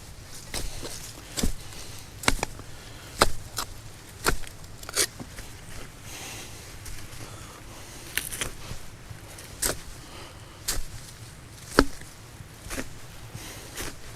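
Repeated sharp blows of a hand tool, mostly about one a second and sometimes closer together, with some scraping between them.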